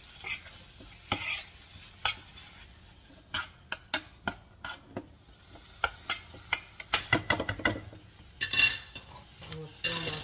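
Green peppers, onions and garlic sizzling in a frying pan while being stirred, the utensil clicking and scraping against the pan many times, with a few longer scrapes near the end.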